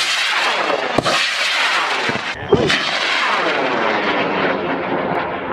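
High-power rocket motor roaring as the rocket lifts off and climbs away, the sound growing duller as it recedes.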